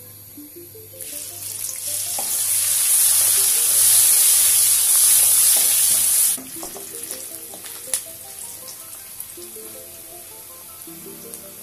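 Sliced onions frying in hot oil in an aluminium wok: a loud sizzle starts about a second in and drops abruptly to a quieter sizzle about six seconds in, as a wooden spatula stirs them with a few sharp clicks against the pan.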